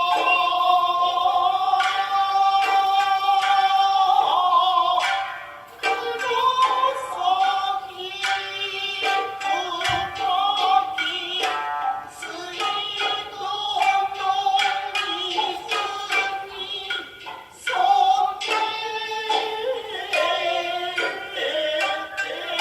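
Music: a singer holding long, wavering notes over sharp plucked-string notes, playing throughout.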